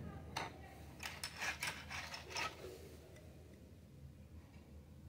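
Light clicks and clatter of small plastic toy plates being handled and set down on a tabletop, in a cluster of quick taps between about one and two and a half seconds in.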